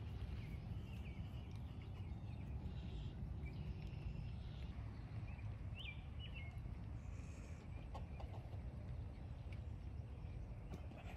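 Outdoor ambience: a steady low rumble of wind on the microphone, with faint, short, high bird chirps scattered throughout.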